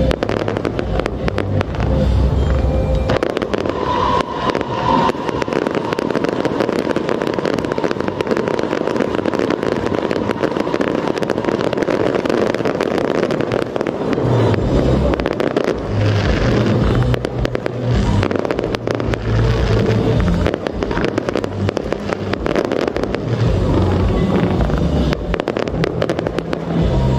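Fireworks going off in a show: dense, continuous crackling with repeated low booms of shells bursting.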